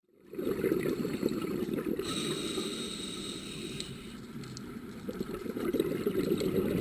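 Low, churning water sound, like bubbling heard underwater, fading in at the start. A faint high steady tone runs over it from about two seconds in until nearly four seconds.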